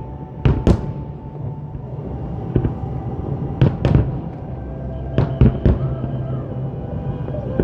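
Aerial fireworks shells bursting in sharp bangs: two about half a second in, one near 2.5 s, two near 4 s and three in quick succession a little after 5 s. Music with sustained notes plays through loudspeakers underneath.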